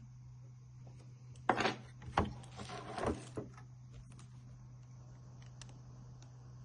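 A few short scraping and knocking sounds in a cluster a second and a half to three and a half seconds in, over a steady low hum.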